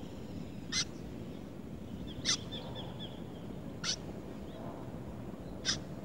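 White-breasted woodswallow calling: four short, sharp calls about one and a half seconds apart, with a faint trill after the second.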